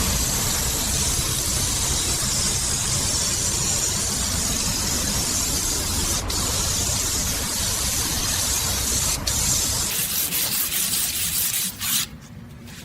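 Steady hiss of a spray or compressed-air tool, cutting off suddenly near the end.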